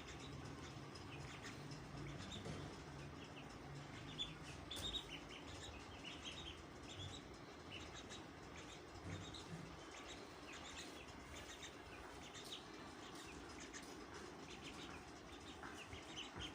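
Young chicks peeping: many short, high chirps come at irregular moments over a faint steady hum.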